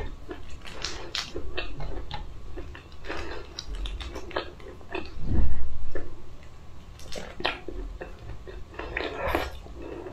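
Shell of a cooked shrimp crackling and snapping as it is peeled by hand, in short bursts of crisp clicks and rustles. A loud low rumble lasts about a second midway.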